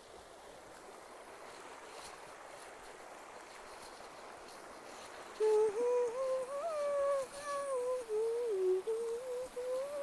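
Steady rush of a creek, then about halfway through a woman starts humming a wandering tune, closed-mouthed, over the water.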